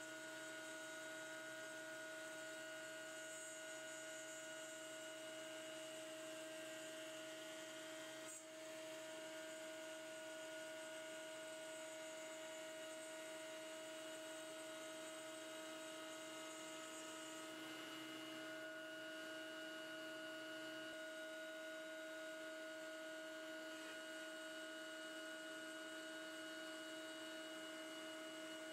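Faint, steady whine of a CNC machine's router motor spinning as it routes shallow dados in a wooden case side, heard as a hum with several steady pitches.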